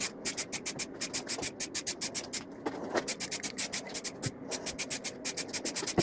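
Aerosol can of red primer spraying in rapid short bursts of hiss, about five or six a second, as model wagons are sprayed with passes back and forth.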